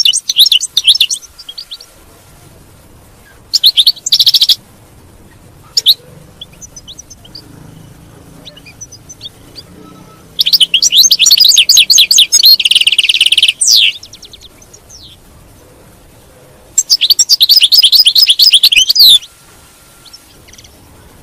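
European goldfinch singing in bursts of fast, high twittering trills. A short phrase comes at the start and a brief one about four seconds in, then longer phrases from about ten to fourteen seconds and from about seventeen to nineteen seconds, with quiet gaps between.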